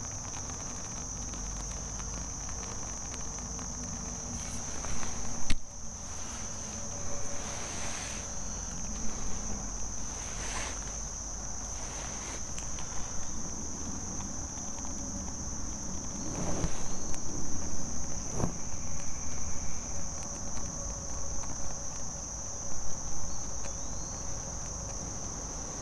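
Insects trilling steadily at a high pitch, with scattered light rustles and a sharp knock about five and a half seconds in.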